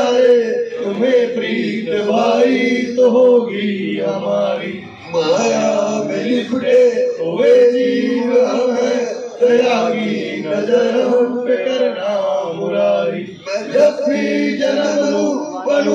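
Male voices chanting and singing an aarti, a Hindu devotional hymn, continuously in chorus.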